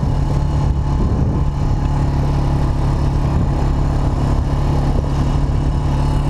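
Quad bike engine running steadily while the bike rides along on sand, with a constant low hum.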